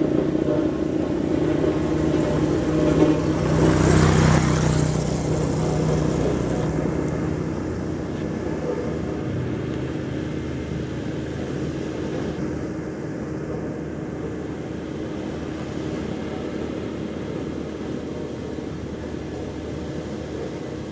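Road roller's diesel engine running steadily, with a louder swell of noise about four seconds in, then slowly getting quieter.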